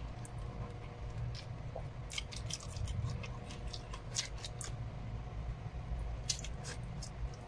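Close-up eating sounds: people chewing rice and meat with their mouths near the microphone, with many short wet mouth clicks and smacks scattered through, over a low steady hum.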